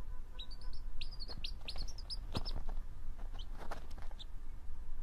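A young chick peeping: short, high chirps in quick runs, thinning out after about three seconds.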